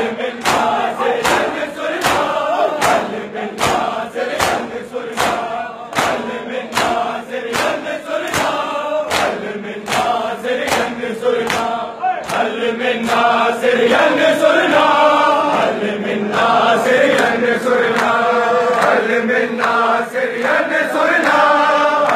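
A large crowd of men performing matam: a steady beat of open-hand chest-beating slaps in unison, under a noha (Shia lament) sung and chanted in chorus by many male voices.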